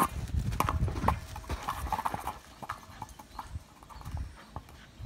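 Footsteps crunching through snow, loud and quick for the first couple of seconds, then fainter, scattered crunches and thumps.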